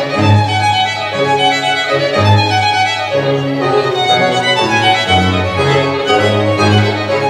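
Background music: a melody of held notes over a low bass line, the notes changing about every half second to a second.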